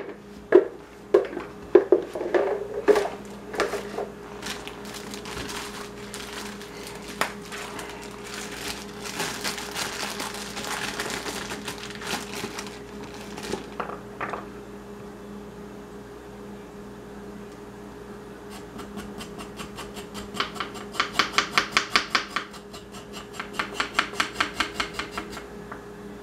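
Kitchen prep on a wooden cutting board: a few knocks and scrapes at first, then a plastic bag of baby carrots crinkling for several seconds. Near the end come two quick runs of rapid knife chops through baby carrots, about six strokes a second.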